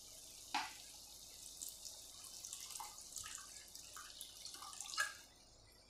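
Water poured from a plastic bottle into a pan of potato and pea curry: faint trickling and dripping, with a light click about half a second in and another near five seconds, then it stops.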